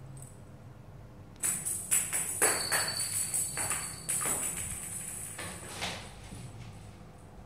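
Bell inside a kitten's plastic toy ball jingling and rattling as a kitten bats and pushes it across a tile floor, with several sharp knocks. It starts about a second and a half in and stops around six seconds.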